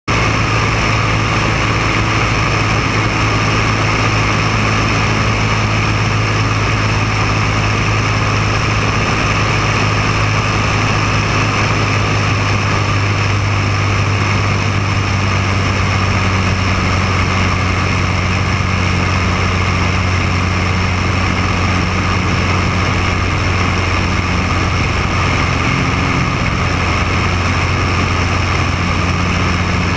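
Maule floatplane's piston engine and propeller running steadily in flight, a constant low drone heard from outside the airframe with rushing air mixed in.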